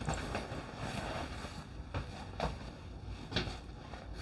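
A few faint knocks and thumps over a low hiss: footsteps and a door as a cat is let out of the room.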